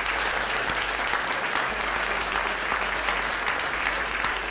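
Audience applauding steadily, a dense patter of many hands clapping, easing a little near the end.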